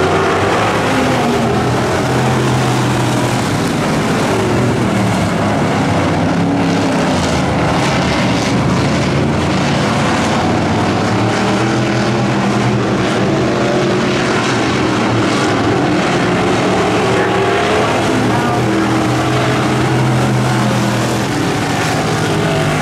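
Street stock race car engines running hard as a pack of cars laps a dirt oval. The engine notes rise and fall as the cars go through the turns and pass by.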